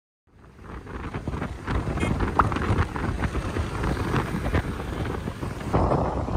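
Wind rushing over the microphone and road and traffic noise while riding pillion on a motorbike, fading in after a brief silence.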